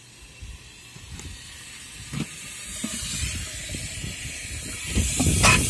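Water hissing as it sprays in through the float valve of a rooftop solar water heater's feed tank, the hiss growing louder over the last few seconds, with a knock near the end.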